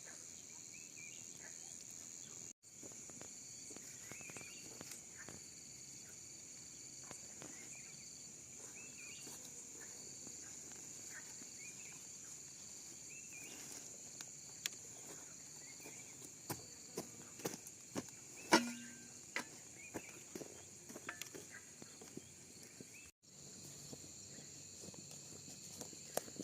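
Insects trilling steadily in a high, pulsing drone, with short bird chirps. From about halfway on come scattered clicks and knocks, one of them louder about two-thirds of the way through. The sound drops out briefly twice.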